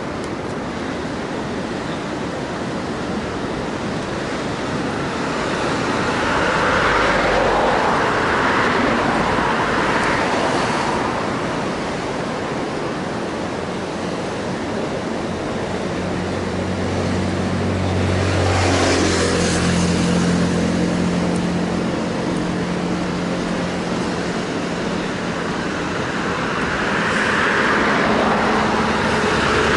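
Road traffic passing on the roadway beside the footpath: three vehicles go by, each swelling and fading as a swish of tyres. The second has a steady engine drone as it passes. Under them runs a constant background rush.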